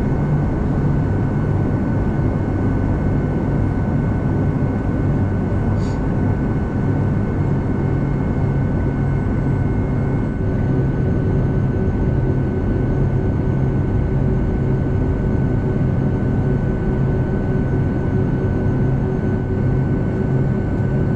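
Steady cabin noise of a Boeing 757-200 with its jet engines running at low thrust while taxiing: a constant low hum under a steady high whine.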